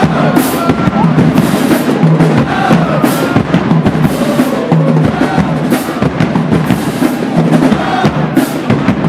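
Marching band drumline playing a cadence on snare and bass drums, with a bright crash about once a second.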